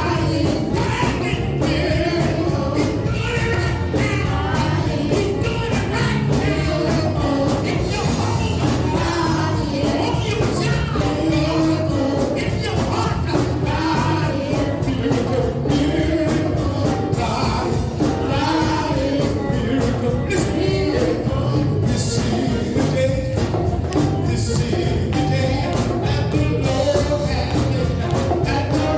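Gospel worship music played by a live band with singing over a steady beat.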